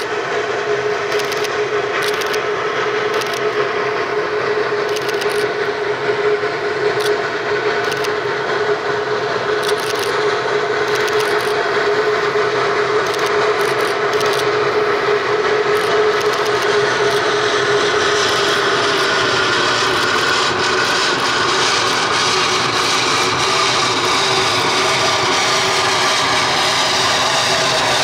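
Narrow-gauge steam locomotive approaching with its train, its wheels giving a steady squeal on the rails over the noise of the running train, with scattered light clicks. It grows louder and fuller over the second half as the engine draws near.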